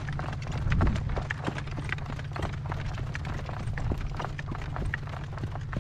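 A ridden horse's hooves clopping as it walks, with gusty wind rumbling on the microphone.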